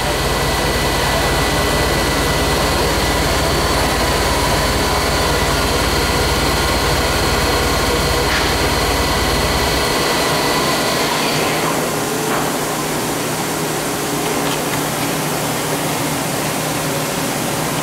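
Haas EC1600 horizontal CNC machining center running a test program, its spindle turning at about 1500 to 2000 RPM with a steady whine over a low hum; it sounds excellent. About ten seconds in the low hum drops away, and the whine stops a moment later, leaving a steady hiss.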